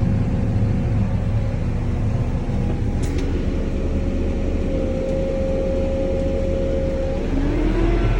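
Crop sprayer's engine running steadily. About seven seconds in its pitch rises and it gets louder as it picks up speed.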